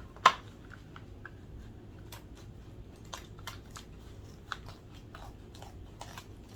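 Small plastic clicks and crinkles from a store-bought galaxy slime container being handled and opened, with a sharper click just after the start.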